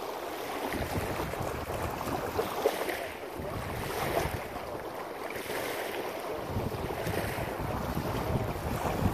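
Wind blowing over the microphone in uneven gusts, with waves washing on a rocky shore.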